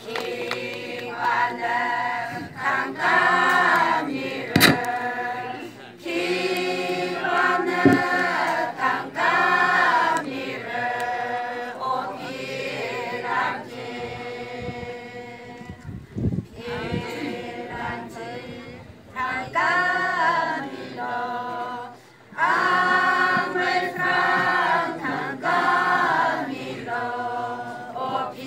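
A group of voices singing unaccompanied, in sung phrases of a few seconds with short breaks between them.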